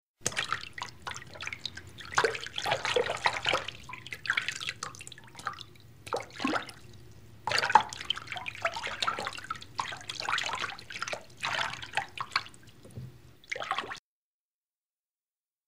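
Water dripping and splashing in quick, irregular drops, thinning out briefly midway and cutting off abruptly near the end.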